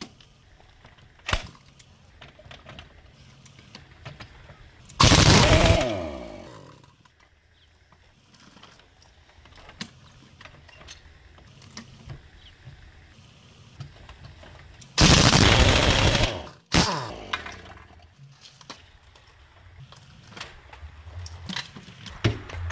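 A power tool runs in two short bursts, about five and fifteen seconds in, each spinning down in pitch as it stops. Light clinks and knocks of tyre work come between the bursts.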